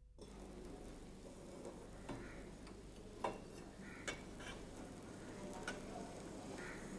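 Stainless steel pots and vessels clinking as they are handled and set down on a gas stove: a handful of sharp metal taps spread over several seconds, the loudest about three and four seconds in, over a faint steady hiss.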